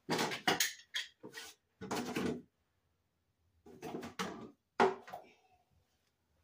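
Kitchen utensils clattering and rattling in a drawer as they are taken out by hand, in two spells of clatter, the last knock leaving a short metallic ring.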